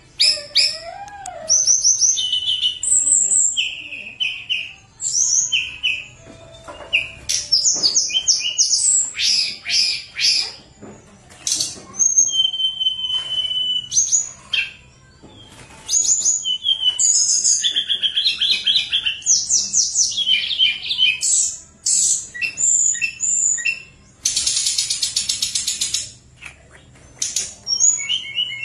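Tledekan gunung songbird singing a long, varied run of high whistled and chattering phrases, with short pauses between bouts. About 24 seconds in comes a dense, rapid trill lasting two seconds.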